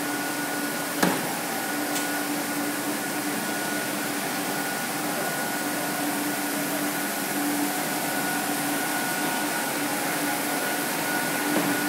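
Rubber knitted-hose production line running: a steady machinery hum with a low and a higher steady whine over it, and one sharp click about a second in.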